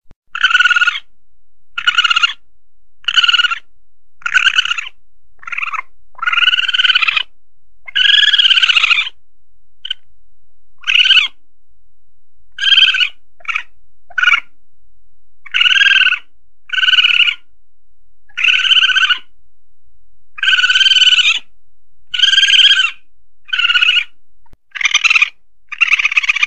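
Asian palm civet (musang pandan) calls, a looped hunting lure: a rapid series of short, harsh, pitched cries about a second apart, each half a second to a second long. Two longer, drawn-out cries come around a quarter of the way through.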